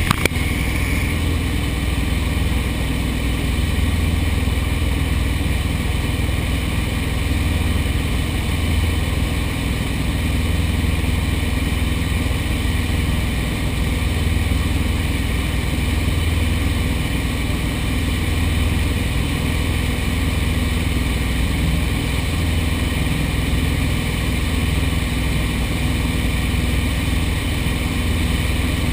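Light aircraft's piston engine and propeller droning steadily at constant power in flight, heard from on board.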